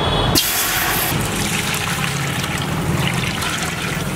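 Water poured in a steady stream from a steel pot into a large steel vessel of wheat flour, splashing as it fills, starting about half a second in.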